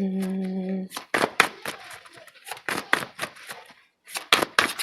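Tarot cards being shuffled by hand: an irregular run of quick card snaps and flicks, after a brief held hummed note at the start.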